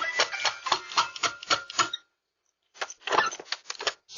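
A police officer knocking rapidly on a front door, about six knocks a second. The knocking stops about two seconds in, then comes again in a short second burst near the end.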